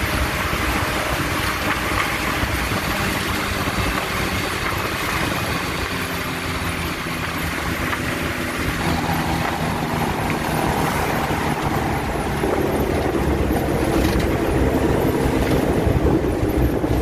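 Mitsubishi L300 van driving on the road, its engine running with road and wind noise heard from the cab through an open window. The engine note changes about nine seconds in and grows louder from about twelve seconds on.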